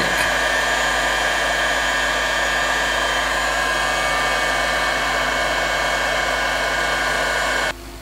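Electric heat gun blowing hot air steadily, a rush of air with a few steady tones from its fan motor, shrinking heat-shrink tubing onto a battery cable lug. It is switched off near the end and cuts out suddenly.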